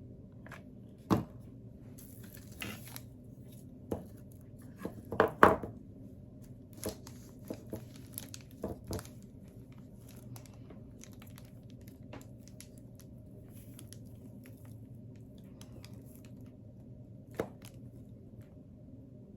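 Scattered clicks, taps and rustles of small parts and tools handled on a work table as a broken smoker figurine is put back together, loudest a little after five seconds in, over a steady low hum.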